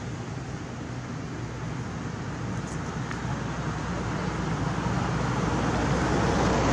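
Road traffic noise, a steady rumble that grows gradually louder.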